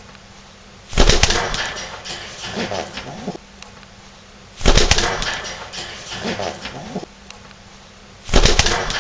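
Domestic pigeon cooing, in a pattern that repeats about every three and a half seconds. Each round opens with a sudden loud rustling burst, then low cooing.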